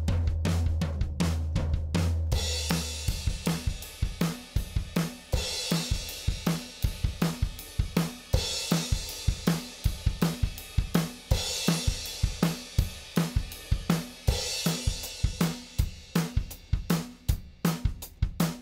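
Recorded drum kit playing a steady groove of kick, snare and hi-hat, with a cymbal crash about every three seconds. A low held bass note sounds under the drums for the first few seconds, then stops.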